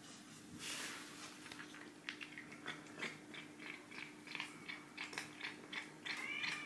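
Cat crunching a piece of dry kibble: a quick run of small crisp crunches, with a brief squeaky pitched sound near the end.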